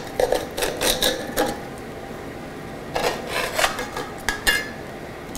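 Metal knife and slotted metal turner scraping and clinking against a Frieling Black Cube nonstick skillet as a ratatouille is cut and lifted out of it: several short scrapes and taps, with a quieter stretch in the middle.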